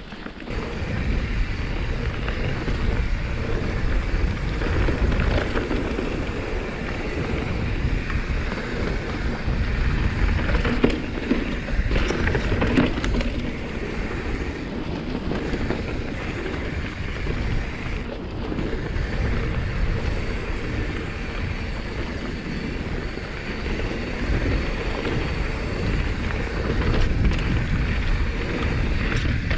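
A YT Jeffsy full-suspension mountain bike ridden over a dirt and rock trail: a steady rolling rumble from the knobby tyres, broken by frequent short clatters and knocks as the bike rattles over rough ground.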